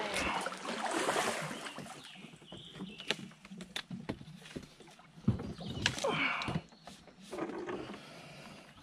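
Kayak paddle strokes splashing in the water, with a few sharp knocks in between.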